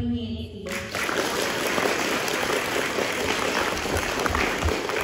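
Audience applauding, a dense steady clatter of many hands. It cuts in abruptly under a second in, replacing a brief stretch of music.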